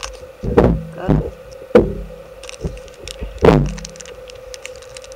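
Handling noise as a foil blind bag is opened by hand close to the microphone: four dull thumps, the second and third close together and the last about three and a half seconds in, over a faint steady hum.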